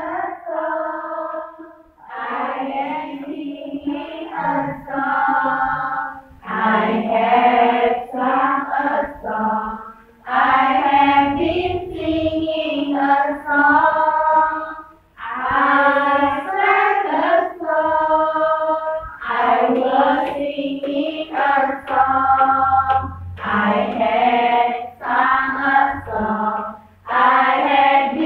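Women singing a song together, in sung phrases of a few seconds with held notes and short breaks between them.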